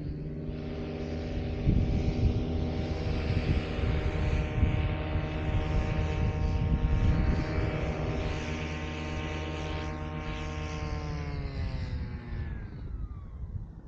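Vittorazi Atom 80 two-stroke paramotor engine and propeller running under throttle. It picks up speed just after the start, holds steady, then winds down from about eleven seconds in as the throttle is eased off. Gusty wind rumbles on the microphone.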